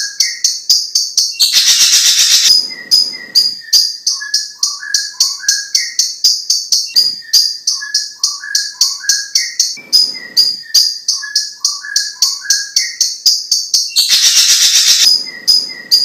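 Cucak ijo (green leafbird) song on a looped bird-training recording. A rapid, even series of high notes, about five a second, runs throughout, with groups of lower whistled notes stepping up and down between them. Twice, near the start and again near the end, the bird breaks into a dense, loud trill lasting about a second.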